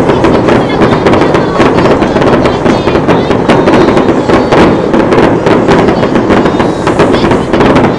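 A fireworks display going off in rapid succession: a dense run of many bangs and crackles.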